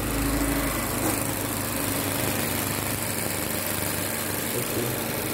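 Mazda 2 Skyactiv four-cylinder petrol engine idling steadily, heard close up through the open bonnet.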